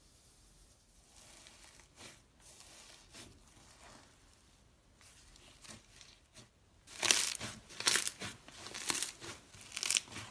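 Slime being handled: soft squishing and rustling at first, then from about seven seconds in loud, sharp crackles, several times a second.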